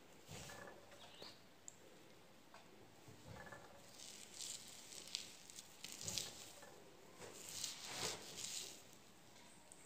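Hands rubbing and patting through short natural hair, working gel in: faint, irregular scratchy rustles, loudest in the second half.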